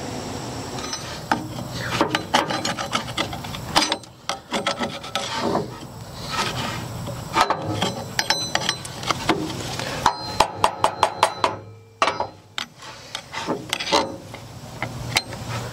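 A flat screwdriver blade scraping burnt-on friction facing residue off the steel plate of a Bush Hog 3008 slip clutch, in repeated strokes with a quick run of short, sharp scrapes about two-thirds of the way through. The residue is left from a clutch disc that overheated and burnt up.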